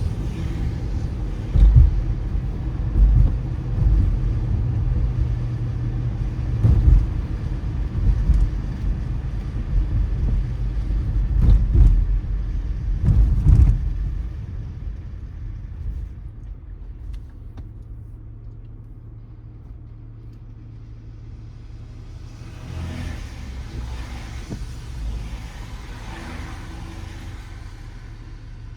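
Car driving on a wet road: heavy low road rumble with a series of jolting thumps over bumps, then from about halfway a quieter, steady low hum as the car slows. Near the end comes a swell of wet tyre hiss.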